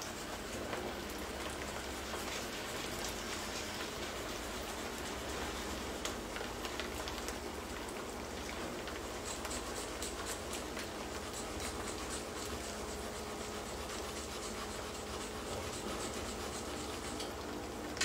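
Onions frying in olive oil in a pan, a steady sizzle thick with fine crackles as the splash of white wine cooks off. The crackling is densest in the middle.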